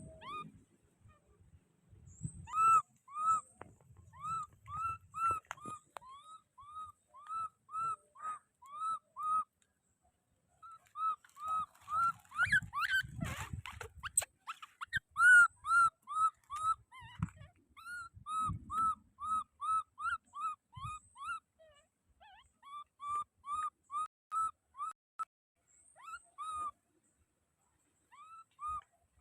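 Baby monkey crying in a long series of short, high, arching calls, about two or three a second, in runs broken by short pauses. Rustling and knocking sounds join in around the middle.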